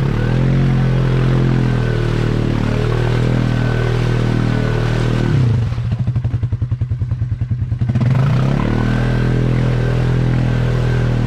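A vehicle engine running steadily. About halfway through it drops for a few seconds to a lower, pulsing note, then picks back up.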